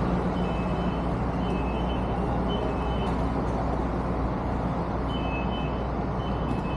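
Steady city traffic noise with a low engine hum, and a short, high electronic beep repeating about once a second, stopping for about two seconds midway.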